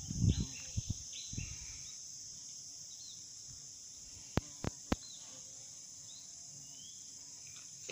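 Insects droning steadily at a high pitch in forest, with short bird chirps now and then. A few dull thumps come in the first second or so, and three sharp clicks come in quick succession a little past the middle.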